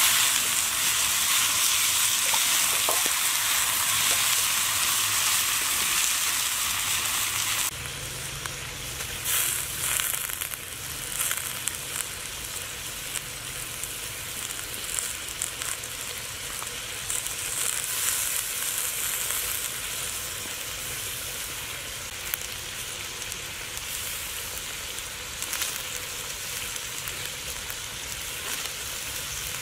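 Whole quail frying in a hot wok over a wood fire, sizzling steadily with scattered pops and stirring scrapes. The sizzle drops suddenly to a quieter level about eight seconds in.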